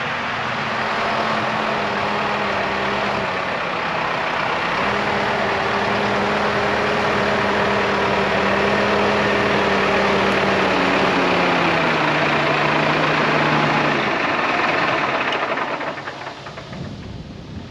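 Diesel engine of farm machinery running steadily. Its pitch slides down a little between about 11 and 14 seconds in, then the engine sound drops away near the end, leaving wind noise.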